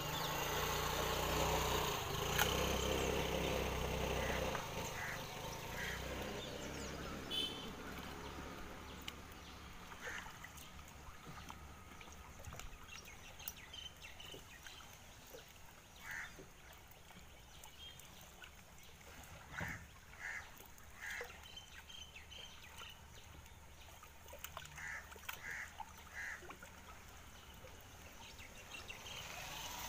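Birds calling with short honks, scattered and often in quick groups of two or three, over a low rumble that is strongest in the first few seconds.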